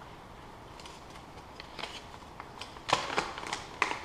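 Packaging being handled: rustling crinkles and a few sharp clicks, the loudest about three seconds in.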